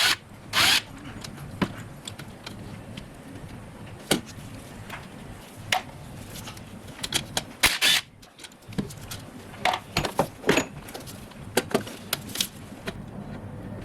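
Hand tools and car parts being handled during disassembly: irregular clicks, knocks and short scraping rattles, with the loudest bursts about half a second in and near eight seconds in.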